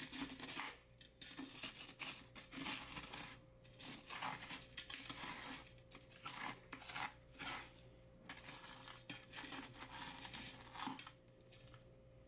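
Damp potassium nitrate crystals being crushed and broken up by hand in a glass bowl: irregular gritty crunching and crackling, with scraping against the glass.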